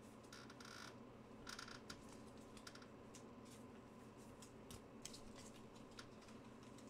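Near silence with faint, scattered light clicks and rustles, bunched in two short clusters about half a second and a second and a half in, then sparser.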